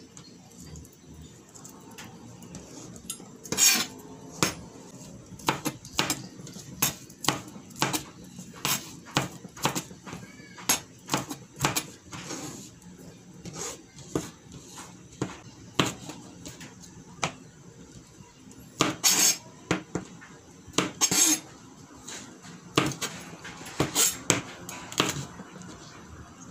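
Chef's knife chopping garlic cloves on a plastic cutting board: quick, irregular taps of the blade on the board, with a few louder knocks.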